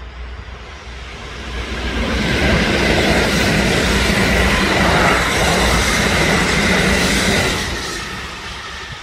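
Kintetsu limited express electric train passing close by. The rumble of wheels on rails rises as it approaches, is loudest from about two to seven seconds in with a steady high whine over it, then fades as the train moves away.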